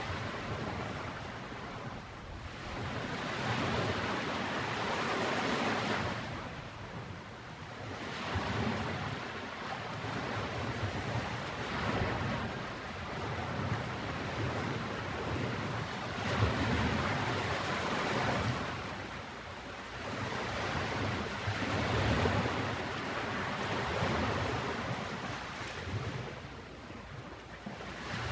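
Ocean waves breaking and washing up on a beach, the surf swelling and falling back every five or six seconds.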